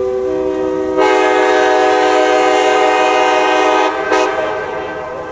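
Leslie K-5LA five-chime locomotive air horn (R24 bell arrangement) sounding one long chord. Its notes come in one after another and swell louder about a second in. Near four seconds it cuts off, gives a short second blast, and the sound echoes away.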